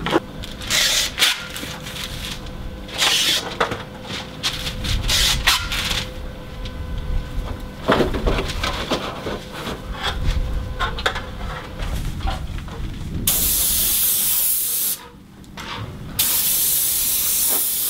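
Paint spray gun on an extension pole spraying top coat onto a metal rain gutter: two long, steady hisses of about two seconds each near the end. Before them come shorter hissing bursts and rustling and knocking from handling the spray shield and masking paper.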